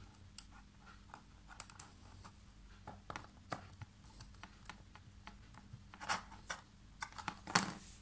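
Small screwdriver clicking and scraping on the screws of a PCB screw terminal block as battery leads are clamped in, with light handling clicks of the board and wires. A few louder knocks come near the end.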